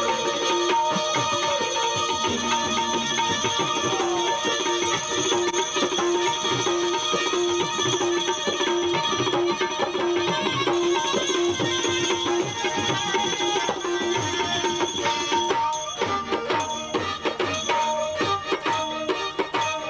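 Gujarati folk music: a melody of held and repeated notes over steady drumming and jingling percussion, the beat growing more prominent in the last few seconds.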